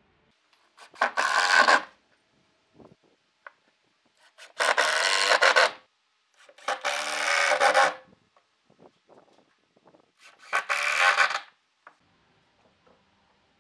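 Cordless drill-driver driving screws into wood: four runs of about a second each, a few seconds apart.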